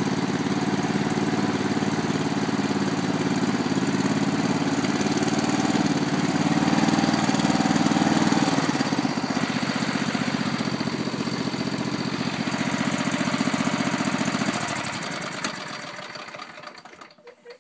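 Riding lawn mower's engine running steadily, a little louder for a couple of seconds in the middle, then shut off about three seconds before the end and running down to a stop.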